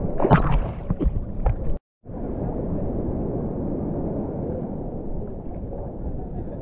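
Hands paddling a surfboard through the sea, with sharp splashes for the first couple of seconds. After a brief total cut-out, a steady wash of water noise continues around the board.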